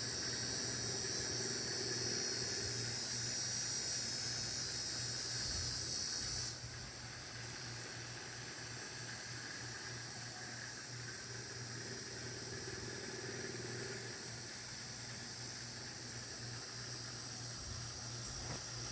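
A steady, high-pitched insect chorus that drops sharply in level about six seconds in and carries on more faintly, over a low steady hum.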